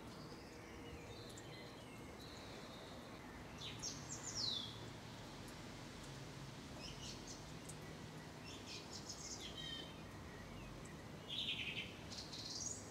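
Eurasian blackbirds singing their evening song: faint, separate short phrases with high twittering notes a second or two apart, the loudest about four seconds in and near the end, over a steady background hiss.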